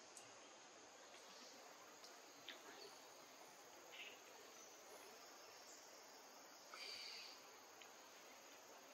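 Faint forest ambience: a steady, high insect drone with a few short chirps, the loudest about seven seconds in.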